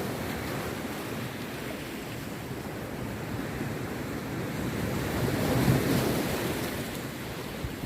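Rough sea waves breaking and washing on a beach, with wind on the microphone. The surf swells to a louder peak about six seconds in.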